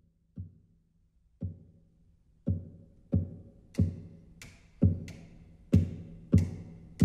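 Opening music: deep drum strikes, single hits that grow louder and come closer together, from about one a second to about three every two seconds. From about four seconds in, a bright, hissing higher layer is added to each strike.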